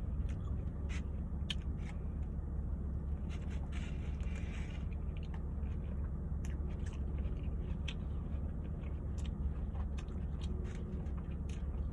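Close-up mouth sounds of a person chewing a steak and cheese sandwich: scattered small wet clicks, with a steady low hum behind.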